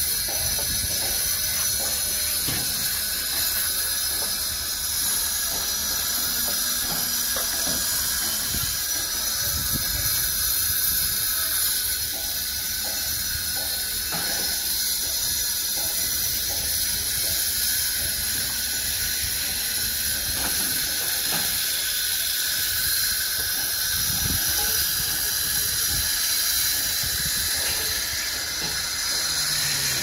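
Construction-site background noise: a steady high hiss with scattered low knocks and rattles from work and machinery.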